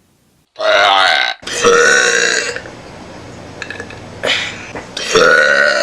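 A woman burping loudly: a run of about four long, pitched burps, the first starting about half a second in.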